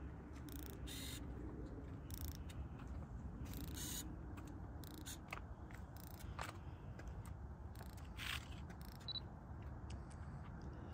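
Faint low background rumble with scattered soft clicks and rustles.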